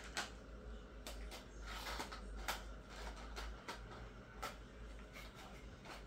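Faint, scattered clicks and small rattles of handling as a T4E HDR68 is reloaded with resin slugs.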